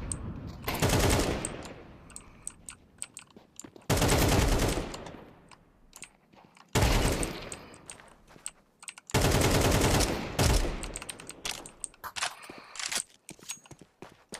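A person snoring heavily: four loud, fluttering snores come about three seconds apart, each fading off into breathing.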